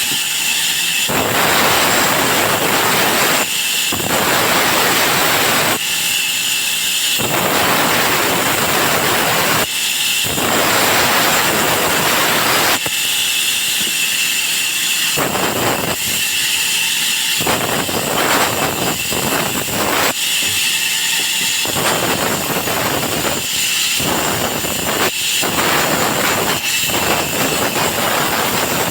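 Sawmill saw running with a steady high whine, broken by repeated stretches of cutting noise, each one to three seconds long, as wood is fed through the blade.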